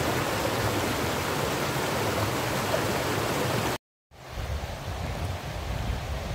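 Shallow river rushing steadily over rocks in small rapids. It cuts off abruptly about four seconds in, and a quieter low rumble follows.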